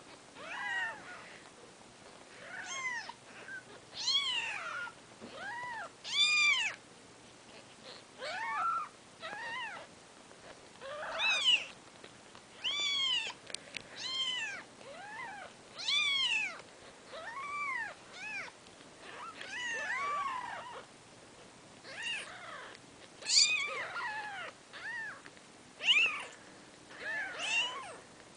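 Newborn kittens, four days old, mewing: short high-pitched cries that rise and fall in pitch, one after another about every second, sometimes overlapping.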